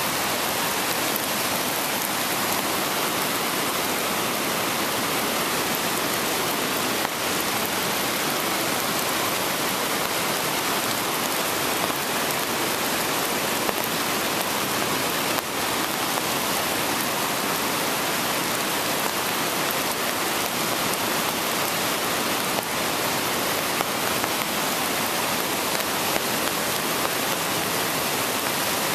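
Swollen river in spate after heavy rain, its rushing water making a steady, even roar of noise.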